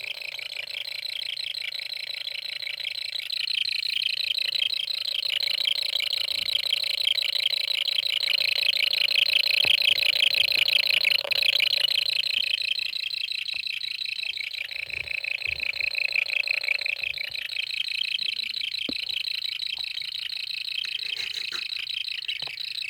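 Continuous rapid, high-pitched cricket-like chirping from an electronic chirping circuit. It swells louder toward the middle and again briefly later on.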